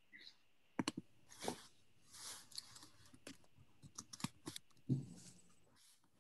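Faint, irregular clicks and taps of typing on a computer keyboard, with a soft thump about five seconds in.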